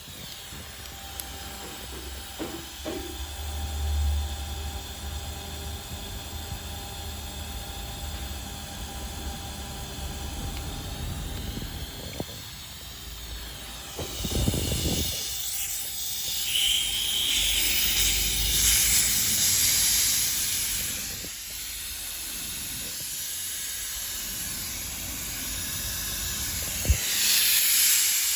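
SMC IDF1E refrigerated air dryer running with compressed air hissing through it over a steady low hum. The hiss builds about halfway through and surges again briefly near the end.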